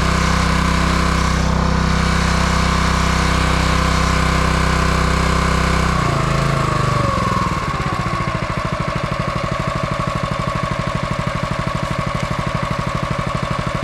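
Wood splitter's small gas engine running steadily. About halfway through it slows with a falling pitch and settles into a lower idle with distinct, rapid firing pulses.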